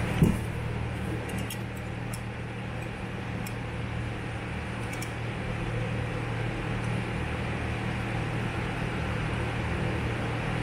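Steady low mechanical hum, with one sharp click about a quarter second in and a few faint ticks over the next few seconds.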